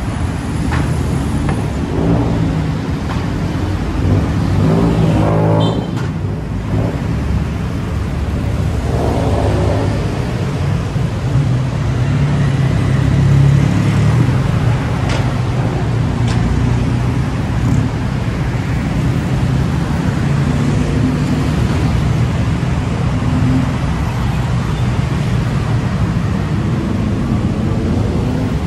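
Motor engines running steadily in a low rumble, with two passages about five and nine seconds in where an engine swells louder.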